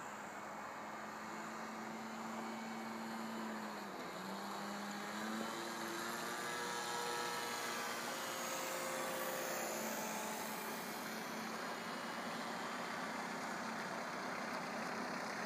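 Engine of a scratch-built fun-fly radio-controlled model plane droning in flight overhead. Its pitch drops briefly about four seconds in and then climbs back, as with a throttle change or a pass.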